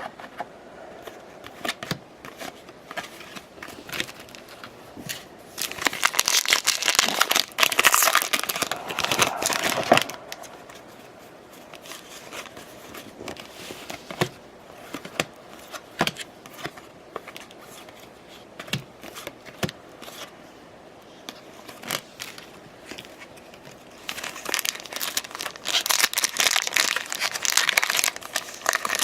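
Crinkly plastic wrappers of baseball card packs being torn open and crumpled, in two spells: about five seconds in and again near the end. Short clicks and ticks come between them as the cards are handled.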